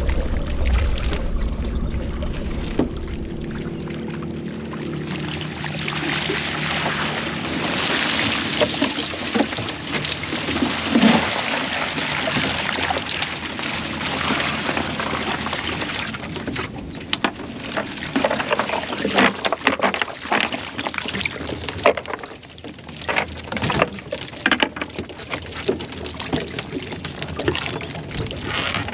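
Cast net full of live pilchards being emptied over a boat's bait well: water pouring and splashing. Later come short irregular wet slaps and taps as baitfish land and flop on the deck.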